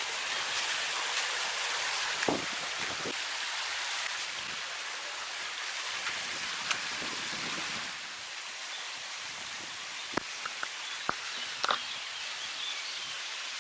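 Spring water pouring steadily from spouts and splashing below, with a few sharp clicks in the second half.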